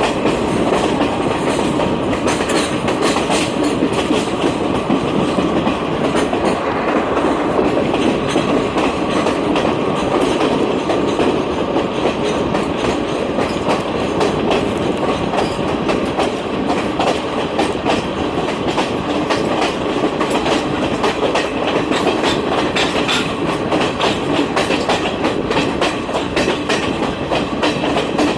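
Passenger train running steadily along the line: a continuous rumble of the carriage with frequent irregular clicks and rattles, the clickety-clack of the wheels on the rails.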